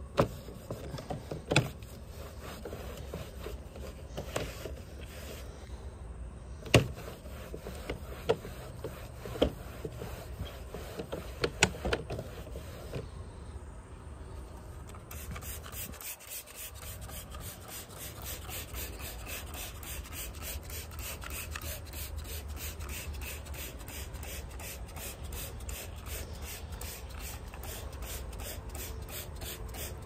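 A rag rubbing and scrubbing driveway sealer spatter off vinyl siding. There are a few sharp knocks against the siding in the first half, then a fast, even run of scrubbing strokes, about three a second.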